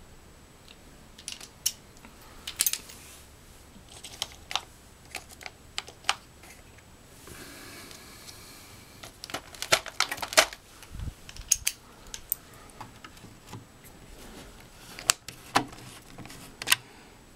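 Irregular small clicks and taps of a screwdriver and plastic as an old thermostat wall plate is worked loose from the wall, with a brief rustling scrape about seven seconds in.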